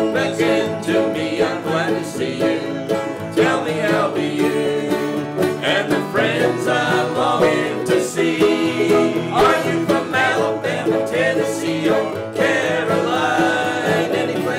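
Country-style string band music: banjo and acoustic guitar strumming with another small plucked stringed instrument, and several voices singing.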